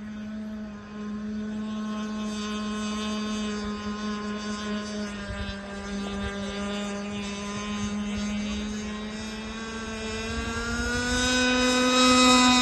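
Radio-controlled racing boat running on the water with a steady motor note. It rises slightly in pitch and grows louder near the end.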